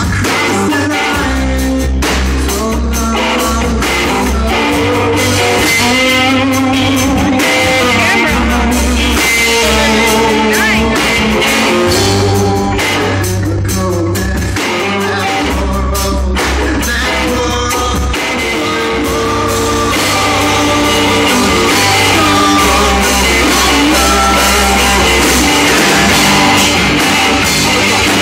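Live rock band playing loudly through a bar PA: distorted electric guitars, bass guitar and drum kit, with a voice singing over them.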